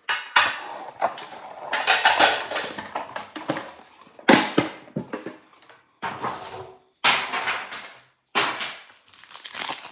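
Handling noise from Pokémon card tins and their packaging: rustling and crinkling with sharp knocks and metallic clatter, in several short bursts that cut off and restart abruptly.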